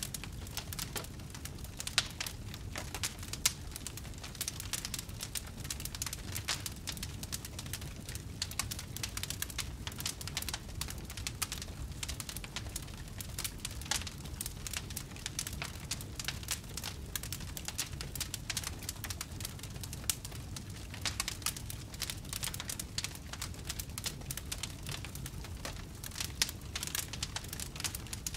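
Wood fire in a fireplace crackling steadily, with dense small crackles over a low steady rush of flame and a sharper pop now and then.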